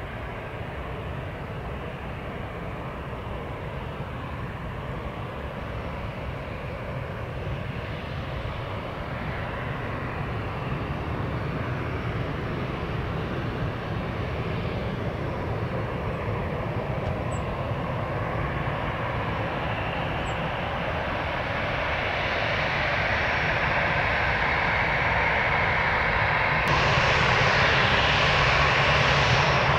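Airbus A320 jet engines on an arrival approach, a steady rushing drone that grows gradually louder as the airliner comes closer. Near the end the sound turns abruptly brighter and louder.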